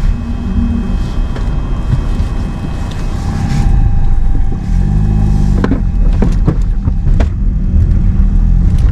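Car driving on a snowy road, heard from inside the cabin: a steady, loud low rumble of engine and tyres, with a few sharp clicks or knocks in the second half.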